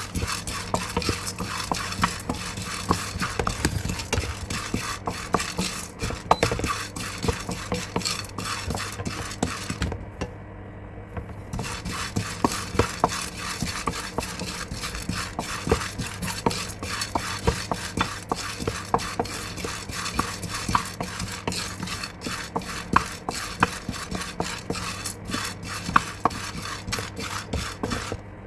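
A spatula stirring and scraping dry roasted gram (chickpeas) around a pan as they are dry-roasted until lightly brown, with quick irregular scrapes and rattles. The stirring pauses briefly about ten seconds in.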